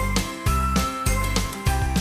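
Music with a steady, heavy beat and bright chiming, bell-like notes.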